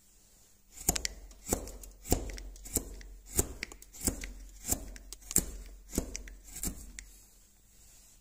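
A carving chisel cutting into a wooden block: about ten crisp cuts, one every two-thirds of a second or so, each slicing off a curled shaving. The cuts stop about a second before the end.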